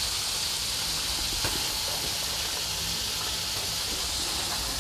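Steady hiss from a hot wok of young jackfruit and spices as coconut milk is poured in.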